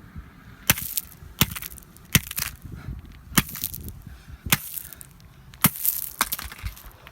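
A plastic flip phone being struck hard over and over, about seven sharp hits roughly a second apart, with cracking of the casing.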